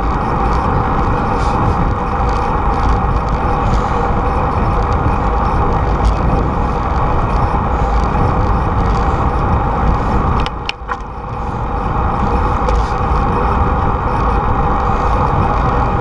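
Steady rushing wind noise on a bike-mounted camera's microphone while riding along a paved path, with a brief drop in the noise about ten and a half seconds in.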